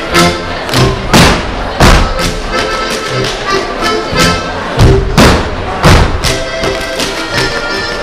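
Schuhplattler dancers slapping their thighs and shoe soles and stamping on the floor in sharp, loud strokes, over live folk dance music.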